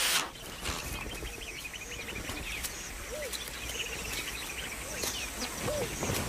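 Open-grassland ambience: small birds chirping in quick, repeated short calls over a steady background hiss, with a few short lower notes.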